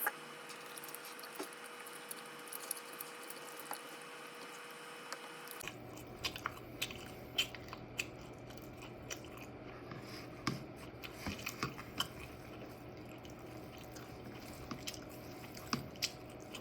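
A person chewing French toast with soft crunching and small mouth clicks. A faint low hum comes in about six seconds in.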